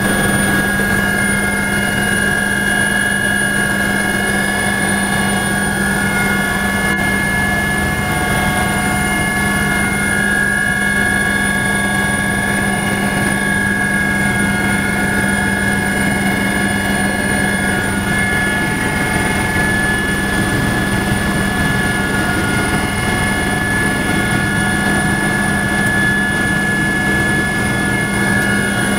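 Helicopter in steady forward flight heard from inside the cabin: a constant low hum with several steady high-pitched whines over it.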